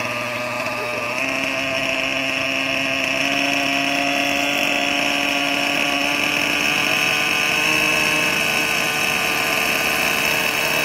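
Glow-fuel (nitro) engine of a radio-controlled helicopter idling on the ground: a steady engine note with a high whine over it. The pitch steps up a little about a second in, and the sound grows slightly louder.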